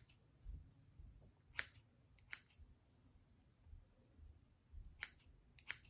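Scissors cutting the hair of a deep wave human-hair wig: a few quiet, sharp single snips at irregular intervals as the longer side is trimmed level.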